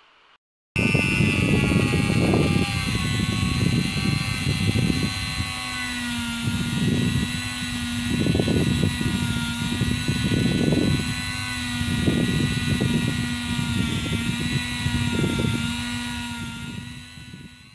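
HILDA JD3321C electric rotary tool running at speed with a steady high whine, its bit pressed against the work again and again in rough bouts of grinding and scraping. It winds down near the end.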